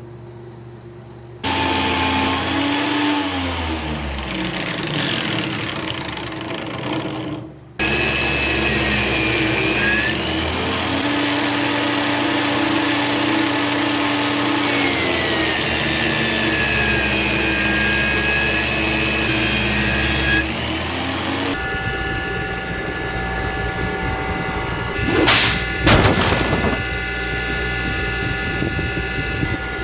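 Electric power tool running on a carbon-steel mason's point chisel, in several cut-together clips; the motor's pitch sags and recovers, with two short harsher bursts near the end.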